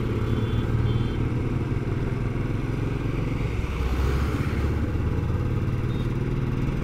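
Motorcycle engine running steadily while riding on a highway, heard from on the bike, with a steady rushing of wind and road noise.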